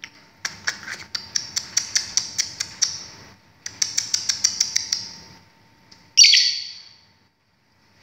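Lovebird chattering in two long runs of quick, sharp chirps, about five a second, then giving one loud, harsh squawk about six seconds in.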